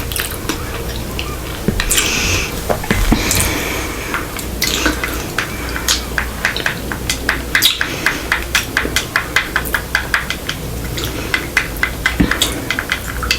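Light utensil clatter against a dish, ending in a long run of quick, sharp clicks, about three to four a second.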